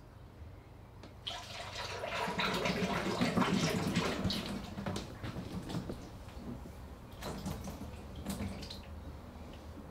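Waste vegetable oil pouring from a plastic container into a filter bag in a bucket, a stream of liquid splashing into the bag. It starts about a second in, is loudest over the next few seconds, then eases into an uneven, splashy trickle.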